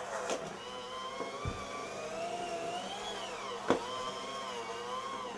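Electric hand mixer beating cream cheese and sugar. Its motor whine wavers up and down in pitch as the beaters work through the thick mixture. There is a sharp knock about three and a half seconds in.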